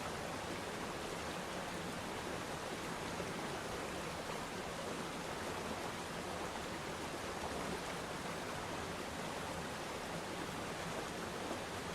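Aquarium with a sand waterfall running: a steady, even rush of moving water.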